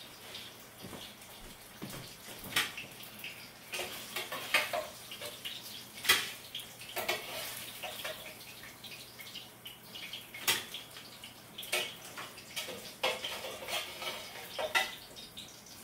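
Kitchen cooking sounds: metal utensils and dishes clinking and knocking against pans, a dozen or so sharp knocks with the loudest about six seconds in, over intermittent hissing.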